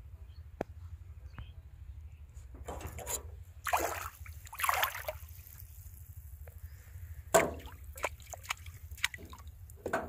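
Pond water splashing and sloshing in a few short bursts, with scattered sharp knocks, the loudest about seven seconds in.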